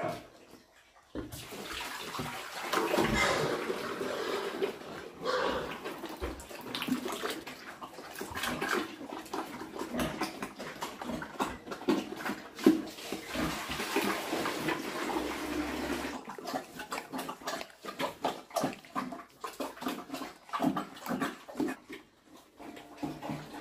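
Sows eating cooked taro-stem bran mash from a trough: wet slurping and chomping with many small smacks, starting about a second in.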